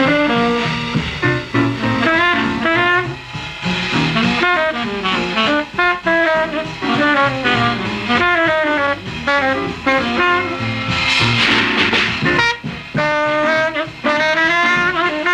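Background swing-style jazz music with brass and saxophone carrying a busy melody.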